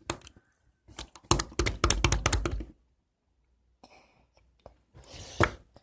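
Handling noises as homemade slime is worked by hand and pushed into a plastic tub: a quick run of knocks and squishy clicks about a second in that stops abruptly, then a shorter cluster near the end.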